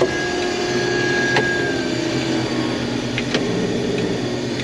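Case IH Axial-Flow combine's engine running steadily, heard from inside the cab, with a low hum, a faint high tone that fades about two seconds in, and a few light clicks.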